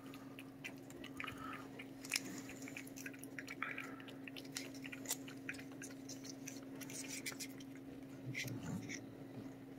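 A cat licking paste-like Churu cat treat from a squeezed stick pack: faint, irregular wet lapping and smacking clicks, over a steady low hum.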